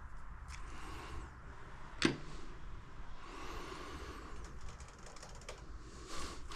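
Hand tools tightening a part back up on an ATV: faint scattered clicks, with one sharper click about two seconds in.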